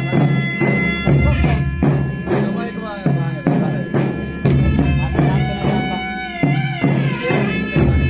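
Folk ritual music: a shrill reed pipe plays a wavering melody over a steady drone, with a double-headed barrel drum beaten under it.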